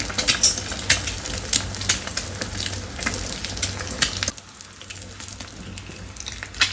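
An egg deep-frying in plenty of very hot oil, crackling and sizzling with many sharp pops as it crisps. A little over four seconds in the sizzle drops quieter.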